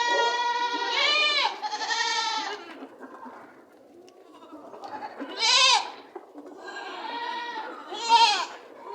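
Goats bleating repeatedly, several wavering calls in turn, with a short lull around three to four seconds in.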